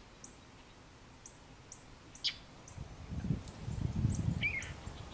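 Outdoor ambience of small birds: faint high chirps repeating every half second or so, with a sharp call falling in pitch about two seconds in. A low rumble comes in about three seconds in and is the loudest part.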